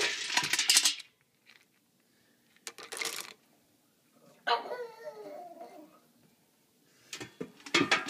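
Dry dog kibble clattering in a plastic food bucket, in two short bursts. About four and a half seconds in, a dog whines for about a second and a half, its pitch wavering and falling, and a few light clicks follow near the end.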